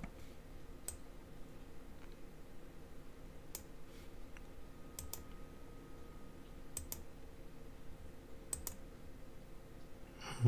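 Computer mouse clicks, mostly in quick pairs, a few seconds apart, over a low steady hum.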